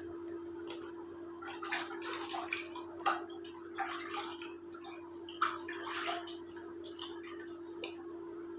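Hands kneading and pressing soft wheat-flour dough in a metal parat, giving irregular soft squelches and knocks, over a steady low hum.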